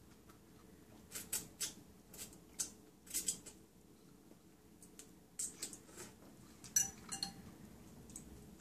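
Eating ramen noodles with a metal fork from a glass bowl: a scatter of short slurps and mouth sounds as noodles are sucked up, with light clinks of the fork against the glass bowl.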